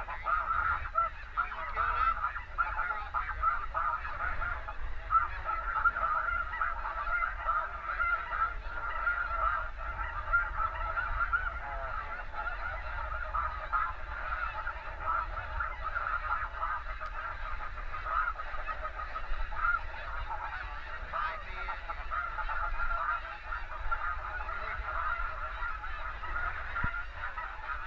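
A huge flock of snow geese calling overhead: a continuous din of many overlapping honks, with louder peaks in roughly the first ten seconds.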